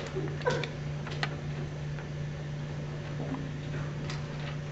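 Quiet room tone under a steady low hum, with a few faint short clicks, the most noticeable about half a second in.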